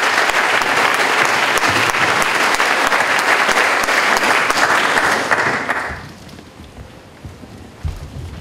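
Audience applauding, the clapping dying away about six seconds in. A few low thuds follow near the end.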